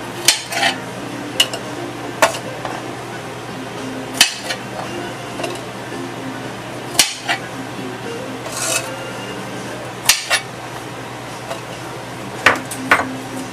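Chef's knife knocking and scraping on a hard cutting board while garlic cloves are handled and dropped into a plastic blender cup: about a dozen sharp, irregular clicks and knocks, some in quick pairs.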